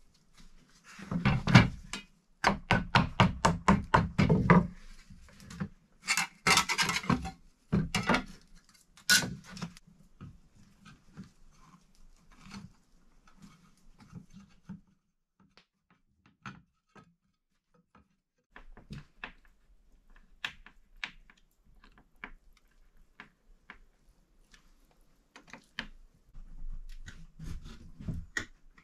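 Light wooden knocks and clicks from an old glazed wooden window sash being handled and worked on over a plank deck. The knocks come in quick runs for the first nine seconds or so, then fall to scattered single taps.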